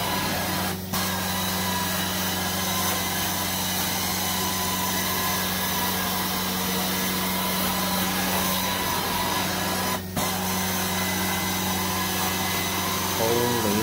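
Carpet-cleaning extraction vacuum running steadily, a steady rushing hiss over a low hum, dipping briefly twice.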